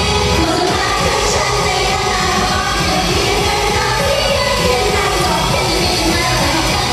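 Idol pop song performed live by a girl group: a full backing track with a steady, even drum beat, and female voices singing over it into microphones.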